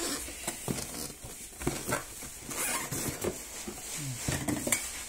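Cardboard packaging scraping, rubbing and knocking as the inner tray of a box is worked out of the outer box: irregular short scratches and light knocks.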